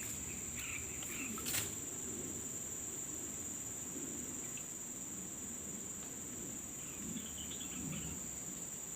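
Steady, high-pitched drone of a chorus of insects, with one sharp click about a second and a half in.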